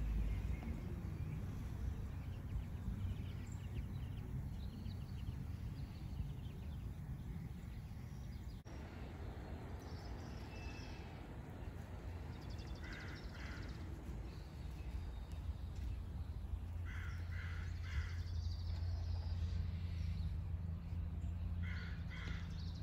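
Crows cawing in short runs of two or three caws, three times through the latter half, over a steady low background hum.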